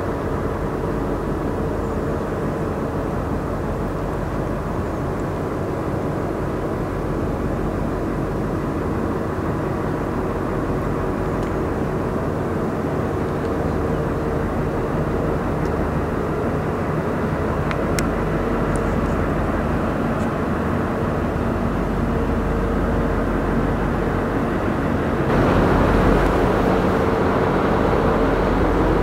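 Ship diesel engines droning steadily, with a low rumble and a held hum. About 25 seconds in, a louder rushing noise joins in and lasts to the end.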